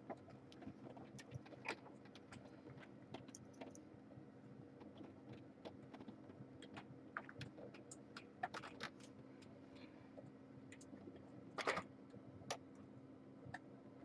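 Faint rustling of a terry towel being spread and tucked in a kitten pen, with scattered small clicks and taps as kittens clamber about, over a steady low hum.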